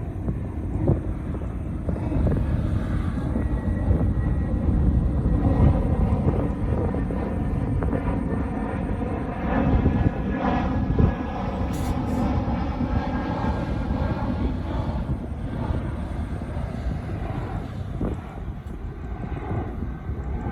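Heavy diesel earthmoving machinery running steadily under load, with a few sharp knocks and a brief higher pitched whine about halfway through.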